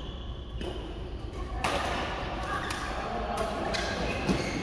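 Badminton rally in a large sports hall: several sharp racket strikes on the shuttlecock and thuds of players' feet on the court.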